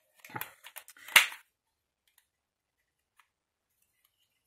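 Light handling of a paper strip and tools on a work table: a few soft rustles and small clicks, the sharpest about a second in, then near quiet.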